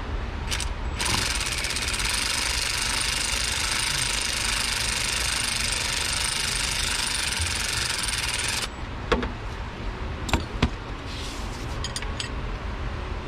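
A power tool runs steadily for about seven and a half seconds, then cuts off suddenly. A few sharp metal clinks and knocks of tools being handled follow.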